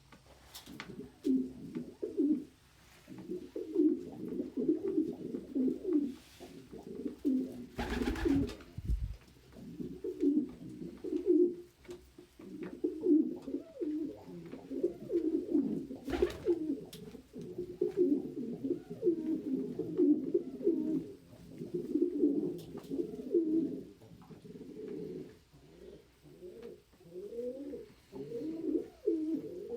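Domestic pigeons cooing again and again, low coos overlapping one after another, with a short thump about eight seconds in and a sharp click about sixteen seconds in.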